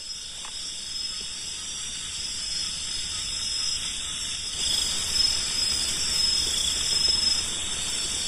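Crickets and other night insects trilling steadily, over a soft hiss that grows louder a little past halfway.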